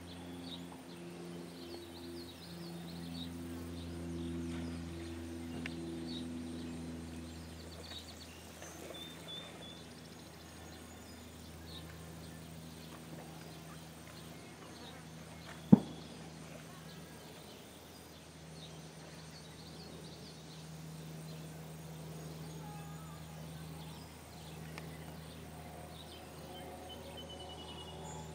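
Lakeside outdoor ambience: a steady low hum with faint, brief bird chirps, broken once about halfway through by a single sharp click.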